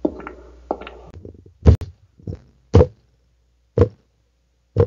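Stomping footsteps sound effect: a few light taps, then four heavy thuds about a second apart.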